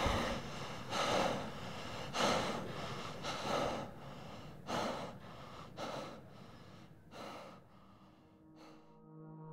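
A man's heavy, gasping breaths, about one every second and a quarter, growing fainter and trailing off near the end.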